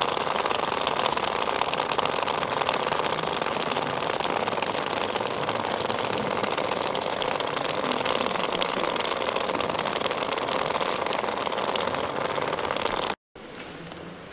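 Several small chrome bullet-shaped vibrating cylinders buzzing and rattling against a concrete floor in a steady, dense drone. It cuts off abruptly about 13 seconds in, leaving a faint rustle of soil being poured from a bag onto the floor.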